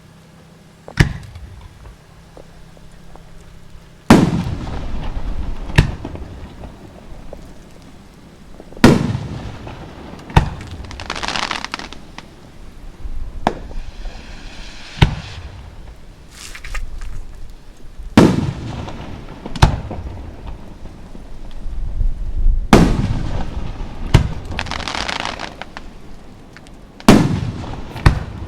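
Aerial firework shells bursting overhead, about a dozen sharp booms a second or more apart, each trailing off in a rumbling echo. Several bursts are followed by a drawn-out hiss or crackle of the falling stars.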